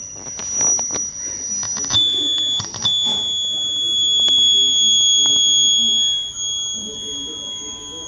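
Faulty tower amplifier's main speaker giving out a loud, steady high-pitched whine, likened to an aeroplane passing; the whine drops to a lower pitch about two seconds in, after a few clicks. The fault lies in the amplifier section, since the two front speakers are free of it.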